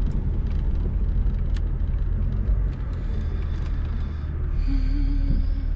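Steady low rumble of a car's engine and road noise heard from inside the cabin as the car slows to a stop, with a brief wavering tone about five seconds in.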